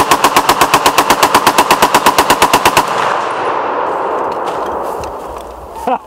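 A Browning Automatic Rifle in .30-06 firing one continuous full-auto burst, about eight shots a second, from a magazine loaded with 30 rounds. The burst ends about three seconds in, and the report rings on and fades over the next two seconds.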